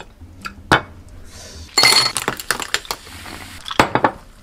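Ice cubes clinking against a glass tumbler: a few sharp separate clinks, a short rattle about two seconds in, and two more clinks near the end.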